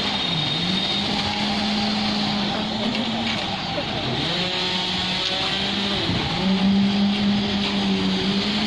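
Diesel engine of a concrete pump or mixer truck running steadily, its pitch dipping and recovering several times as the load changes.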